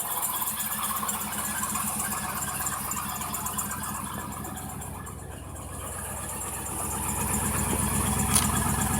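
1999 GMC Yukon's V8 idling cold, just after a hard start, with a rhythmic knock that the owner's mechanic puts down to piston slap from slightly oval cylinder sleeves. It gets quieter about the middle and louder again near the end.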